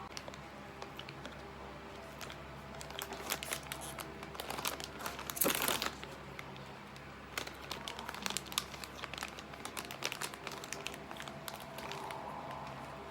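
Ice cream wrapper crinkling and crackling as it is handled, with the loudest rustle about five and a half seconds in.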